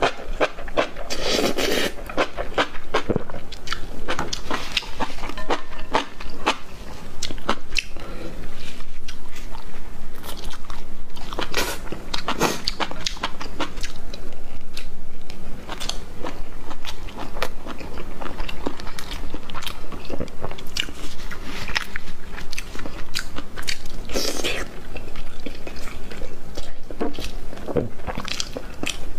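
Close-miked eating sounds: a person biting and chewing food, with many short, sharp crunches and mouth clicks.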